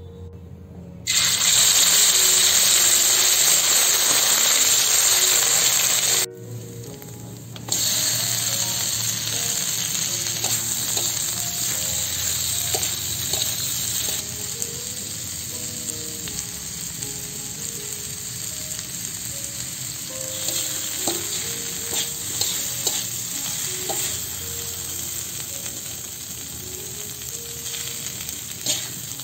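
Food frying in hot oil: a loud sizzle starts suddenly about a second in, breaks off briefly, then comes back and slowly dies down. A spatula knocks against the pan now and then.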